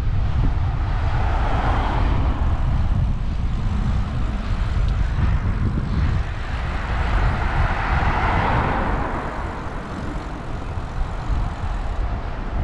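Wind rumbling on the microphone over steady vehicle noise while riding, with the noise swelling twice: about a second in and again around eight seconds.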